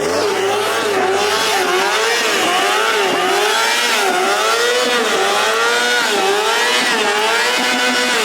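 A car engine revved over and over, its pitch rising and falling roughly once a second. It starts abruptly and stays loud throughout.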